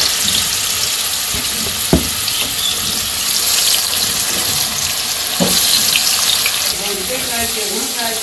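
Pangas fish steaks, rubbed with salt, turmeric and chilli, sizzling steadily as they fry in hot oil in a kadai. Two thuds about two and five and a half seconds in.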